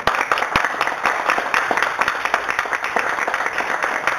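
A small group applauding: many hands clapping together, starting suddenly and keeping up steadily.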